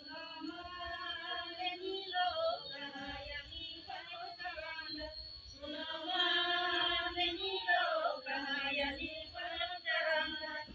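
A group of women singing a Karam festival folk song together, in long held phrases with short breaks between them, with low thumps under the voices.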